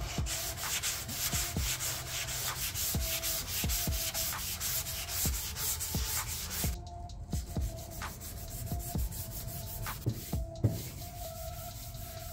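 Sandpaper on a hand sanding block rubbed back and forth over a car's primed quarter panel in quick strokes, about five a second, with a couple of short pauses and a knock about ten seconds in. This is blocking the primer to check that the bodywork is straight.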